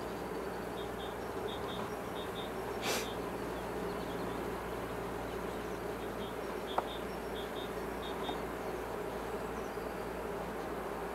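Steady buzzing hum of honeybees on the exposed frames of an open hive. A brief scrape comes about three seconds in, and a single sharp tick near seven seconds.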